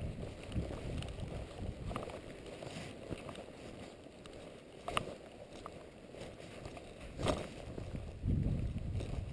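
Wind and rain on a handheld camera's microphone: an uneven low rumble, with a few sharp taps, the clearest about five seconds in and again about two seconds later.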